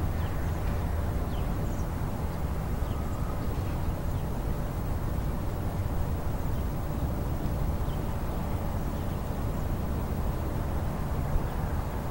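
Steady low outdoor rumble of wind and background noise, with a few faint short high chirps.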